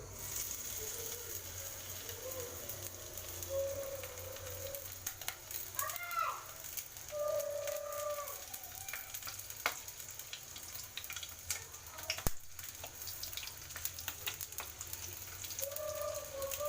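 Hot oil frying in a pan with stuffed capsicums (bell peppers) in it: a steady sizzle with many small crackles and spits.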